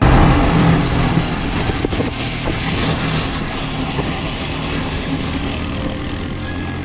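Yamaha motorcycle engine running at a steady riding speed, heard from the rider's seat with wind rushing over the microphone.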